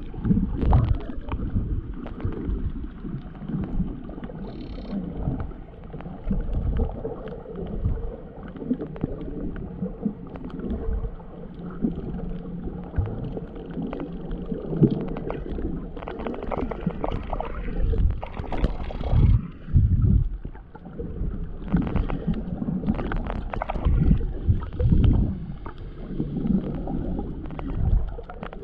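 Muffled water sloshing and gurgling with irregular dull thumps, as heard by a camera filming underwater while snorkelling, and a faint steady hum in the background.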